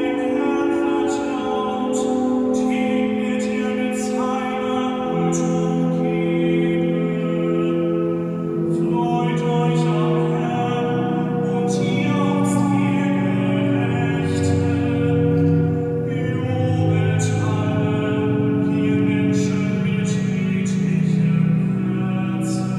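Cathedral pipe organ playing an improvisation in slow, soft, sustained chords that change every few seconds. Deeper bass notes come in about halfway through, and the sound comes down from a high vaulted ceiling.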